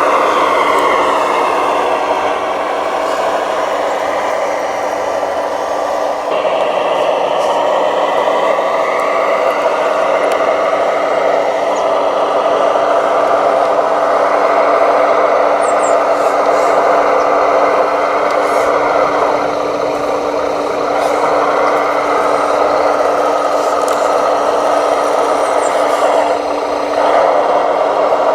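Small electric motors and gearing of radio-controlled construction models whining under a steady hum, the pitch gliding up and down as they change speed, with a few light clicks.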